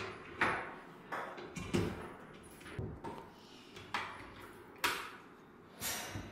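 Parts of a Wilfa ProBaker stand mixer being fitted together by hand, the motor off: a string of sharp clunks and clicks, about one a second, as the stainless steel bowl is seated on the base, the whisk attached and the tilt-head set down.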